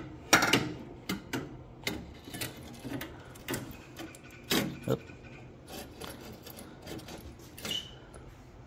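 Irregular clicks, taps and knocks of a metal transmission cooler being handled and held against the front of the radiator. The loudest come about half a second in and again around the middle.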